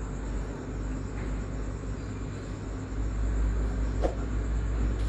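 Steady low rumble of a lit gas stove burner under a lidded kadhai of masala cooking, growing a little louder in the second half.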